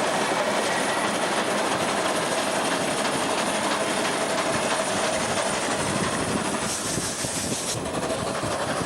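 Train of old FS Centoporte carriages running along the track, a steady rolling noise with a faint steady tone through it. Near the end a brief high hiss comes in and cuts off suddenly.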